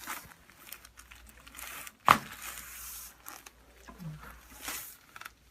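Rustling and crinkling as a patient shifts on a chiropractic table, with one sharp, loud crack about two seconds in.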